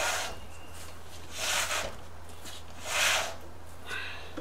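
Front wheel of a 1973 Honda CB750 being spun by hand as a spin test of the freshly rebuilt front disc brake, giving a soft swishing rub about every second and a half as the wheel turns.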